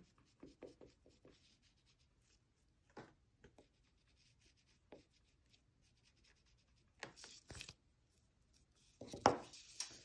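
Brown Cray-Pas oil pastel rubbed in short, faint strokes across paper, with a couple of louder scratchy rubs near the end.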